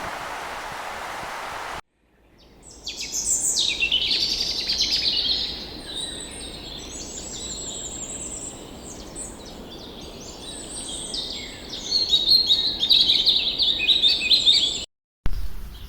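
Many small birds chirping and trilling at once in a dense, busy chorus, which fades in a couple of seconds in after a brief steady rushing noise and cuts off abruptly near the end.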